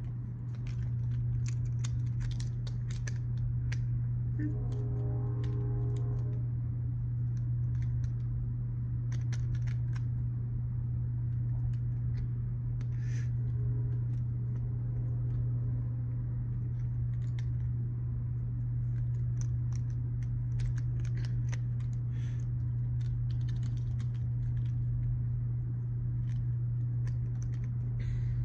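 Freight train passing, heard through a closed window: a steady low rumble with scattered light clicks and rattles over it.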